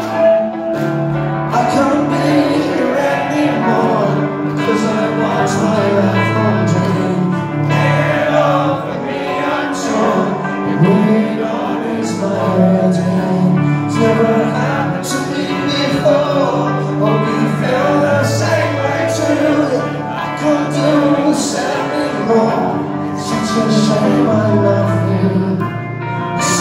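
Live alternative rock band playing a song, electric guitars and drums with a male singer.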